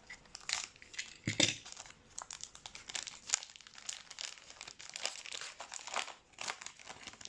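A trading-card pack wrapper crinkling and tearing in irregular crackles as it is worked open by hand; the pack is stubborn and slow to open.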